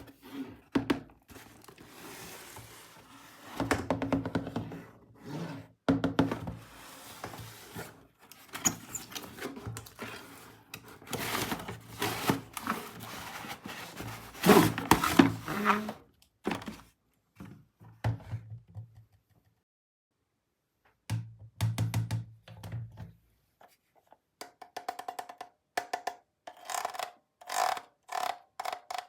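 Plastic toy pieces and packaging handled, with many clicks, knocks and rustles. A low hum sounds briefly twice past the middle, and a short tone repeats about twice a second near the end.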